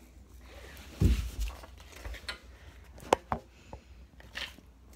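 Popcorn tipped from a bowl over a person's head and clothes: a low thump about a second in, then scattered light clicks and short rustles.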